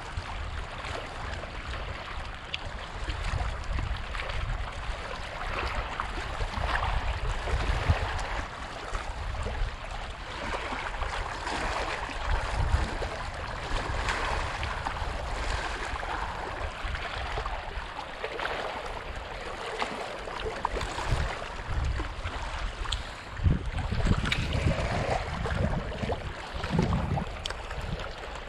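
Small waves lapping and splashing against a rocky shoreline, with wind gusting on the microphone as an uneven low rumble.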